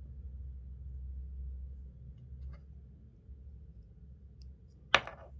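Quiet handling of small parts as twine is worked through a rubber damper washer, with faint ticks and one sharp click near the end, over a low steady hum.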